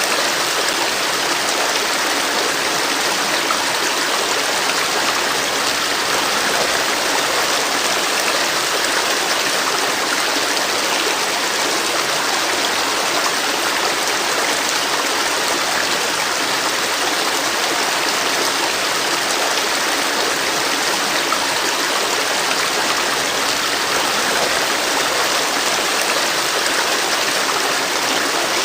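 Steady rushing of a flowing stream or river, water running over rocks at an even level.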